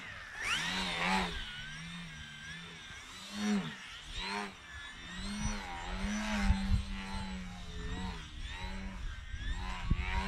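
Motor and propeller of a 32-inch Edge 540 RC aerobatic plane buzzing in flight, its pitch gliding up and down again and again, with louder swells near the start and about three and a half seconds in.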